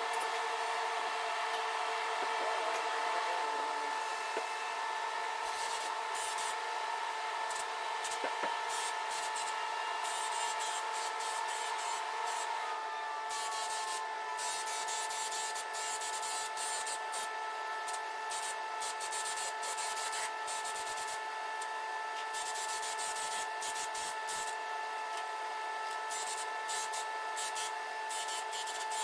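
Paint sprayer spraying: a steady hiss over a fixed-pitch whine, with the high hiss breaking off and resuming many times as the gun is triggered on and off.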